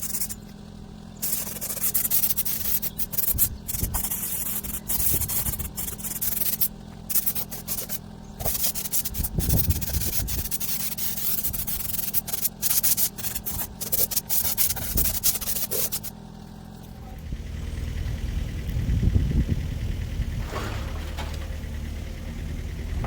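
Abrasive sanding of steel with a power tool, a loud even hiss that stops and restarts many times. About 16 seconds in it gives way to a low engine rumble.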